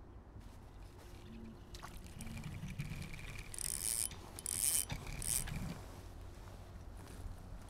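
Shimano Ultegra 2500 spinning reel being wound, whirring in three short spurts about halfway through, with handling noise of the rod and jacket around them.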